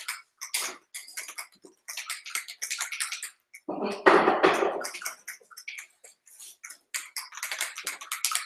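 Aerosol can of Plasti-Dip being shaken: the mixing ball rattles in quick runs of short, sharp clicks, a few a second. About four seconds in comes a longer, louder rushing noise lasting just over a second.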